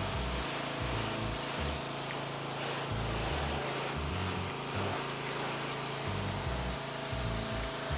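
Pressure washer spraying water against a building wall: a steady hiss of spray, with a low hum underneath.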